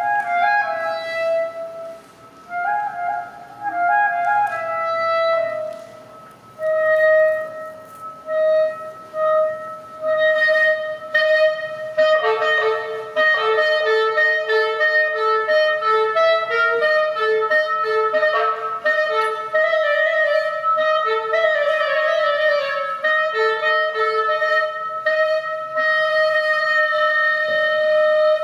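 Clarinet improvising: short repeated two-note figures with pauses, then a long held note from about six seconds in, over which a second, lower line enters and drops out again from about twelve seconds in.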